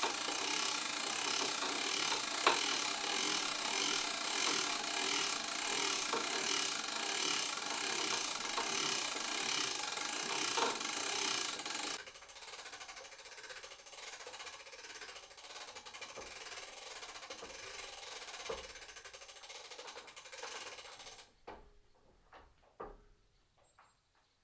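Hand-cranked winch of a material lift being wound to raise a heavy timber roof truss, its ratchet clicking rapidly and evenly. Loud for about the first half, quieter from halfway, then it stops a few seconds before the end, leaving a few separate clicks.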